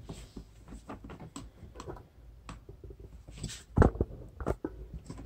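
Scattered small plastic clicks and knocks from a plastic battery box being handled and fitted onto a kayak track mount, with two sharper knocks a little under four seconds in.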